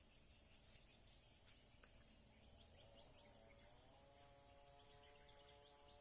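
Steady high-pitched buzz of insects, with a faint, steady pitched drone joining about halfway through.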